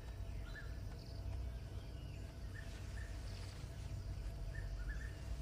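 Quiet forest ambience: short bird chirps repeat every half second to a second, with fainter higher calls over a low steady rumble.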